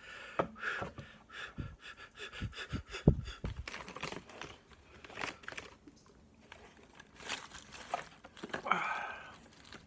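Crinkling and small clicks of dental floss being handled and worked between the teeth, with heavy breaths now and then.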